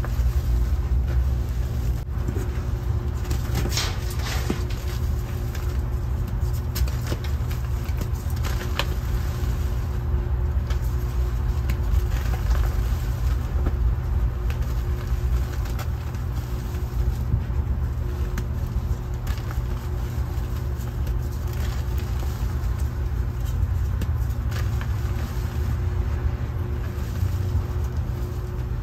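Hands crumbling, squeezing and patting soft dried gym chalk reforms in loose powder, with scattered soft crunches and crackles, over a steady low background rumble that is louder than the chalk.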